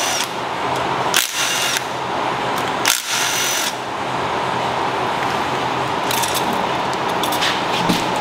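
Cordless drill/driver spinning in four short bursts, backing out the bolts that hold the front cover on an engine block.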